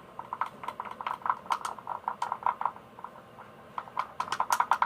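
Coloured slime mixture of glue and activator being stirred, giving a run of quick wet, sticky clicks and smacks, several a second, pausing briefly past the middle and coming faster near the end.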